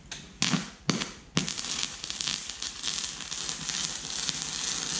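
Wire-feed arc welding on a steel tank. It starts with three short sputters in the first second and a half as the arc strikes, then settles into a steady crackle as the bead runs.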